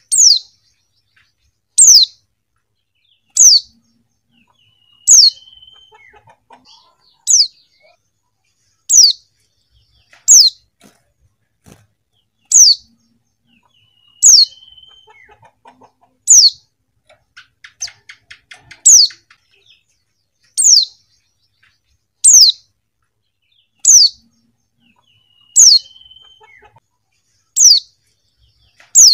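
Female white-eye (pleci) calling: a short, sharp, high note that falls in pitch, repeated steadily about every one and a half to two seconds, with faint soft twittering between the calls.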